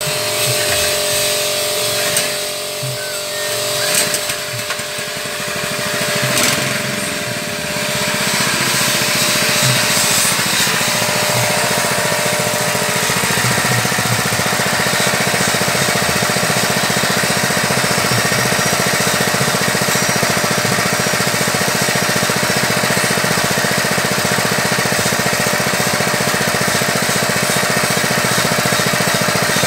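Small petrol engine running steadily at a constant speed, with a few knocks over the first several seconds.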